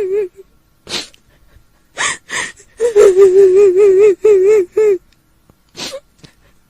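A woman's voice crying like a kuntilanak: sharp sobbing gasps, then a long, high wail with a fast trembling wobble that breaks off twice and stops, and one more gasp near the end.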